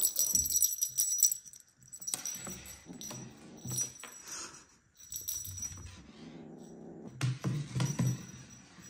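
A kitten batting and biting a feather wand toy on a tabletop: light metallic jingling with quick knocks and scuffs, loudest in the first second or so, then softer rustling.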